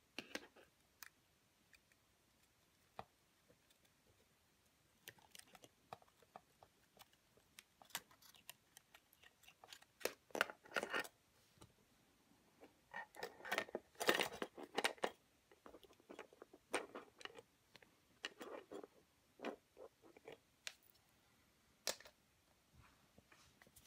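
Scattered small clicks, taps and rustles of an opened camcorder's plastic and metal parts being handled and fitted together, busiest in two short spells around the middle.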